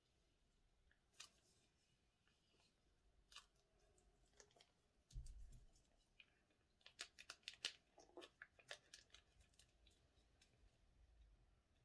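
Faint handling of a plastic piping bag of slime, with crinkles and clicks. There is a soft thump about five seconds in, then a quick run of sharp crinkles and clicks in the second half as small scissors are brought to the bag.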